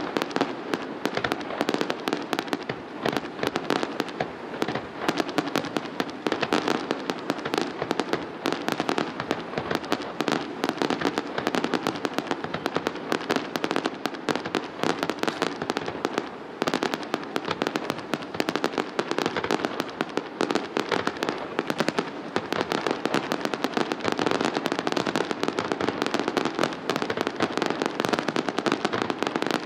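Aerial fireworks display: shells bursting in a rapid, unbroken string of bangs and crackles, many to the second.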